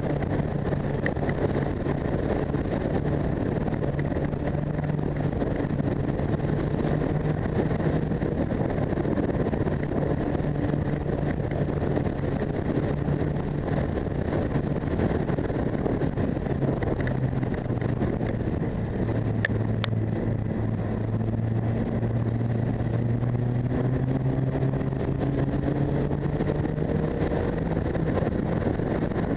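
Motorcycle engine running under way, with heavy wind rush on the microphone. The engine note drops a little past halfway, then climbs over the last few seconds as the bike speeds up.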